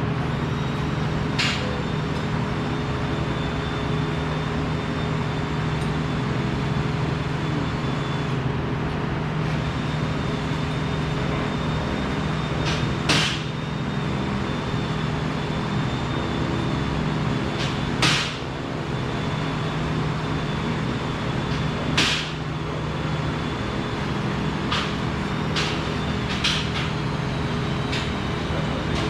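Steady machinery hum in a welding shop, broken by a few sharp knocks, with several smaller ones clustered near the end.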